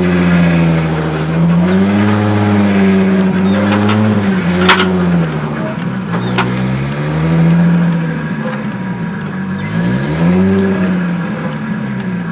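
Turbocharged RB20DET straight-six in a Nissan 240SX running hard under boost, its pitch climbing with the revs and dropping back about three times as the driver works the throttle and gears. Two sharp cracks come about halfway through, as the revs drop, with the blow-off valve left unconnected.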